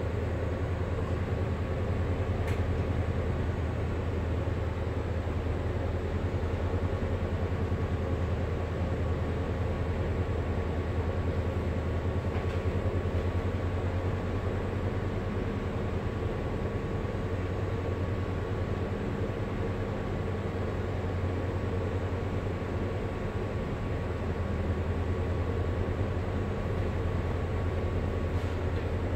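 Ship's engine machinery running steadily: a low drone with a faint steady whine above it.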